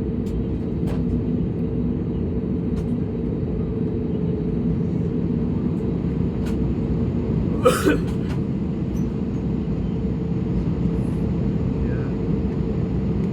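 Steady drone of engines and airflow heard from inside the cabin of an Airbus A320neo in motion, with a low hum throughout. One brief sharp knock stands out about eight seconds in.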